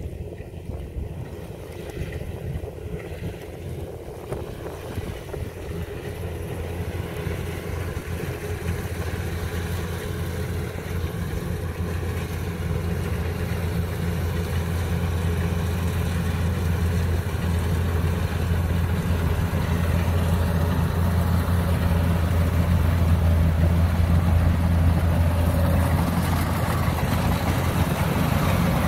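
Kubota DC-105X combine harvester's diesel engine running steadily under load as it cuts rice, its drone growing louder as the machine comes close.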